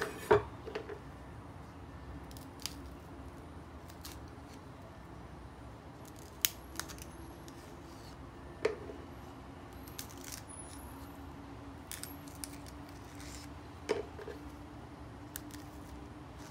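Snow pea pods being snapped and stringed by hand: short, crisp snaps every few seconds as the stem ends are broken off and the strings pulled away. The loudest is a single sharp knock just after the start.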